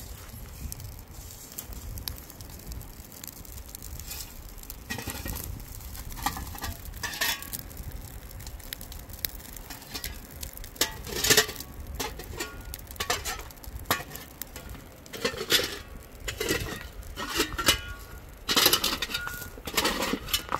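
Metal shovel scraping and striking stony ground in irregular strokes with metallic clinks, as a small grass fire is beaten out. The strokes come more often and louder in the second half.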